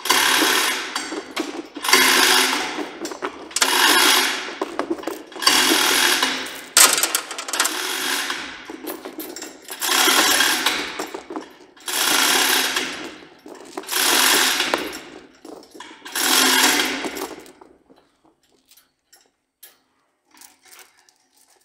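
Yale 3-ton hoist lifting a tractor of about 5,000 pounds, close to its rated capacity, in about nine clattering bursts roughly two seconds apart. The bursts stop about 18 seconds in.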